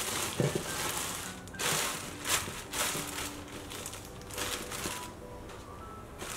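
Thin plastic bags crinkling and rustling in irregular bursts as they are handled and smoothed around a stainless steel bowl, with a soft knock about half a second in.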